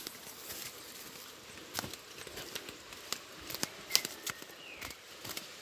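Footsteps on a dirt path strewn with dry leaves and twigs: irregular crackles and snaps as people walk downhill.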